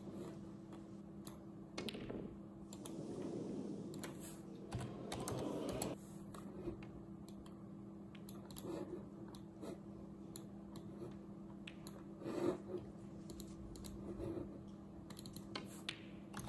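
Computer keyboard typed on in short bursts of clicks, over a steady low hum.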